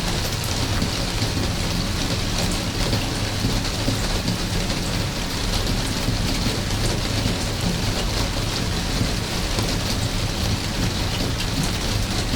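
Steady rain falling, with dense small drop impacts throughout and a low, even rumble underneath.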